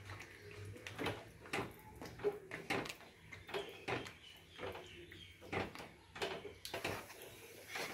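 Cooked sago being poured into a metal pan of fruit cooked in jaggery, then stirred in with a wooden spatula: irregular scrapes and knocks of the spatula and the thick mixture against the pan.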